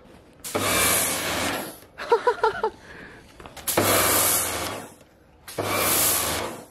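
Electric pressure washer jet blasting concrete in three bursts of about a second each, the trigger let go in between, with the pump's low hum running under each burst.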